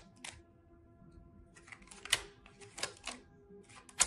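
Tarot cards being handled and shuffled by hand: about half a dozen short, sharp card snaps and taps with pauses between them.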